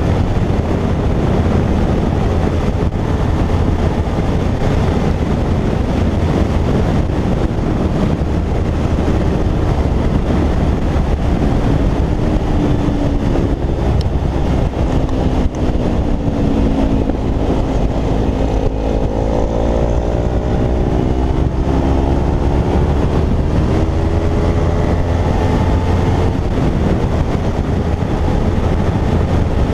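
Kawasaki Ninja parallel-twin sportbike riding at road speed, heard from a helmet camera, with loud wind rush over the microphone covering much of the engine. About halfway through, the engine note drops as the bike slows, then climbs steadily as it accelerates again.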